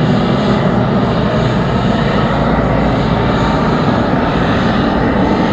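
ATR 72-600 turboprop airliner flying low overhead on landing approach: its two Pratt & Whitney PW127M engines and six-bladed propellers give a loud, steady drone that eases slightly as it moves past.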